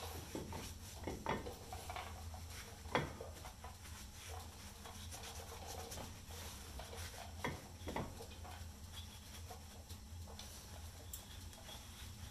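Faint cloth rag rubbing and wiping over a disc brake rotor, with a few light knocks; the sharpest comes about three seconds in.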